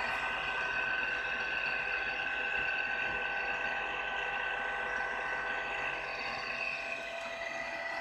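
Vintage thermal camera powered up and running: its spinning mechanism gives a steady whine of several high tones.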